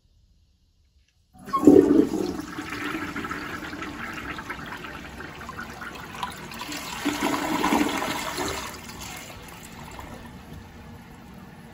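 1977 Briggs Duke toilet flushing: after a second or so of quiet, the flush starts suddenly with a loud rush of water, swells again around seven to eight seconds in as the bowl drains, then eases to a quieter steady running of water.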